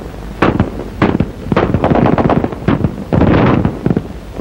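Battle gunfire and explosions: a series of sharp bangs about a second apart over a constant rushing noise, on an early sound-film soundtrack.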